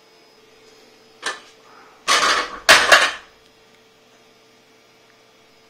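A person dropping from standing down onto a carpeted floor into a split, using dip bars for support: a brief rustle about a second in, then a loud scuffling thud at about two seconds and a second knock just after, as he loses his balance on the way down.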